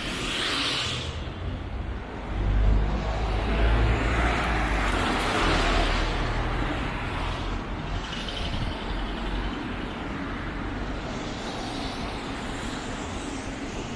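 A road vehicle passing, its rumble and tyre noise swelling a couple of seconds in and fading away over the next several seconds.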